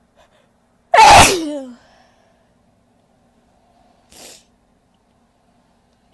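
A woman's single loud sneeze about a second in, its voiced tail falling in pitch as it dies away. A faint short hiss of breath follows about three seconds later.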